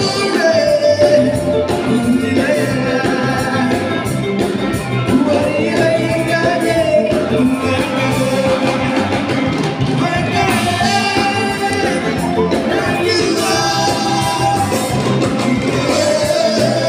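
Live band playing: electric guitar, keyboard and a drum kit keeping a steady beat, with a voice singing the melody over them.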